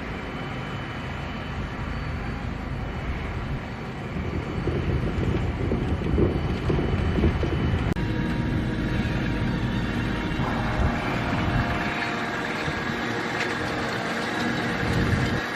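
Fendt 724 tractor working with a Ropa Keiler II potato harvester: heavy farm machinery running steadily with a deep rumble. It grows louder a few seconds in, and about two-thirds through a higher steady whine joins.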